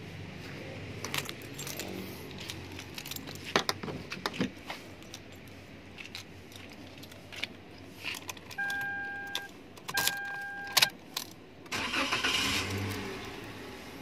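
Clicks, knocks and jingling keys as a Daihatsu Terios's driver's door is opened and the key is handled, then two long beeps of the car's warning chime. About two seconds before the end the engine is started.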